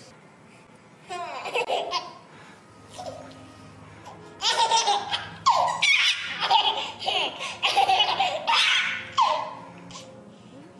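A baby laughing in high-pitched bursts: a short laugh early, then loud, nearly continuous belly laughs from about four seconds in until near the end.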